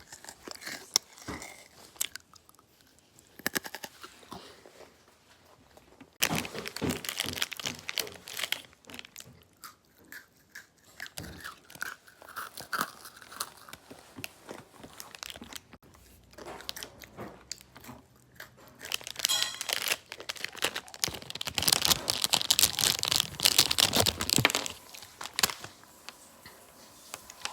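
A person chewing crunchy food close to the microphone, with loud bouts of crunching about six seconds in and again for several seconds near the end, and quieter chewing between.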